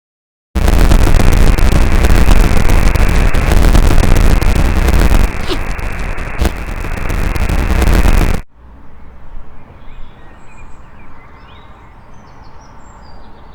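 Very loud static noise, a harsh hiss and crackle that starts suddenly, drops a little in level partway through and cuts off abruptly after about eight seconds. Faint bird chirps follow over quiet outdoor background.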